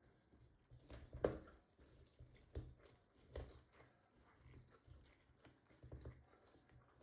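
Faint kitchen handling sounds: a few soft knocks and squishy rustles of food being worked by hand, the loudest a little over a second in.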